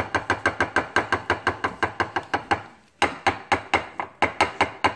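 A silicone scraper knocked rapidly against the rim of a glass batter bowl to shake off sour cream: sharp taps, about five a second, with a short break just past halfway.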